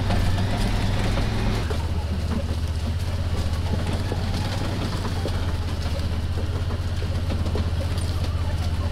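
Honda side-by-side utility vehicle's engine running steadily as it drives slowly over corn stubble, its low note shifting slightly about one and a half seconds in.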